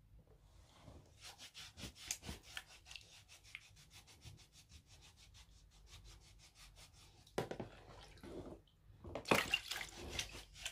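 A hand-held bristle scrub brush scrubbing a wet foot in brisk, even strokes, about five a second. Then water splashing and sloshing in the footbath basin as the foot is rinsed, loudest near the end.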